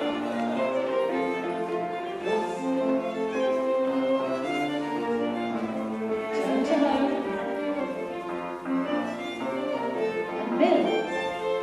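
A fiddle-led country dance tune played with other bowed-string accompaniment, the music for a Regency set dance. There are a couple of brief louder sounds from the room, one near the middle and one near the end.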